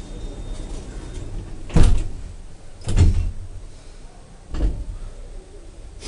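Elevator doors working: three short, dull thumps within about three seconds, the first the loudest, over a low hum.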